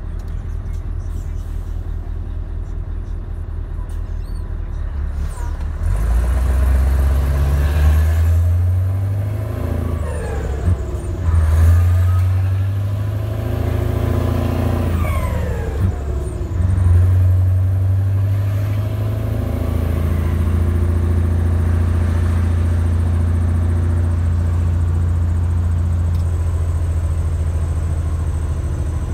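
Scania V8 truck engine with an open, straight-through exhaust, heard from the cab: idling steadily at first, then pulling away under load about six seconds in, the note rising and breaking briefly two or three times at gear changes, then running at a steady cruise for the last ten seconds.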